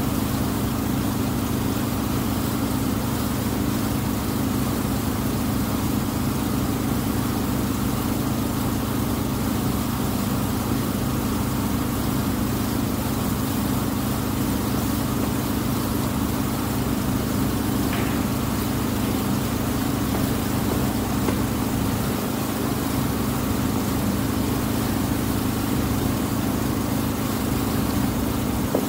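Engine of the wooden water bus Tuula II running at a steady speed: an even low drone with a steady hiss over it.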